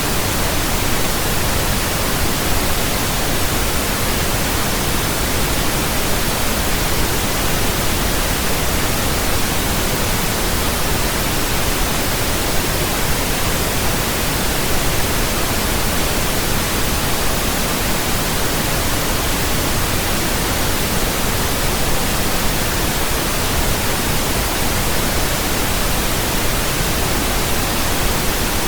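Steady pink noise: a continuous, even hiss with no changes.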